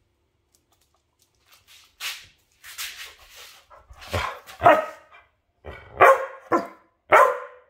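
A dog barking: after about two seconds of quiet come a few fainter sounds, then several loud barks, mostly in pairs about half a second apart.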